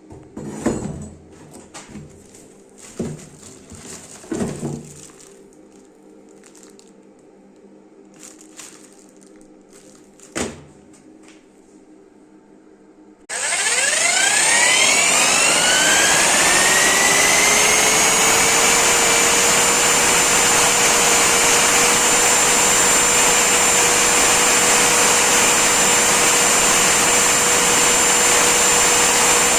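A few knocks and handling sounds, then about thirteen seconds in a handheld electric construction mixer switches on. Its motor whine rises as it spins up over a few seconds, then it runs loud and steady at full speed.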